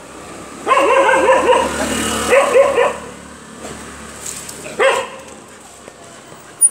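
Stray dogs barking: a rapid run of high yelping barks for about two seconds, then a single bark about five seconds in. A brief sharp click comes near the end.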